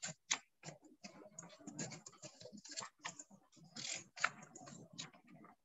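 Pages of a paper textbook being flipped and handled: a quick, irregular run of faint paper rustles and soft flicks.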